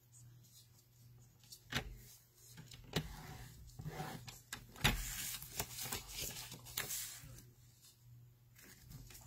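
Cardstock being scored on a grooved scoring board: a scoring tool scrapes along the groove in short strokes, with several sharp knocks and taps as the sheet and tool are handled, the loudest about halfway through.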